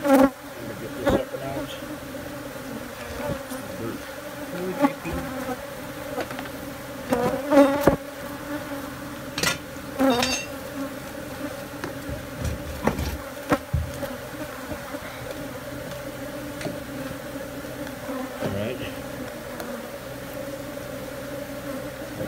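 Steady drone of a disturbed colony of Africanized honey bees, many flying at once while their nest is cut open, with a few sharp knocks and scrapes as the honeycomb is worked by hand.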